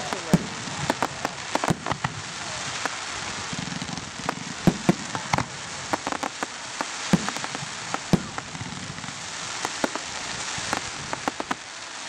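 Fireworks display: sharp bangs and crackles from aerial shells bursting, coming in clusters about four to six seconds in and again near the end, over a steady hiss.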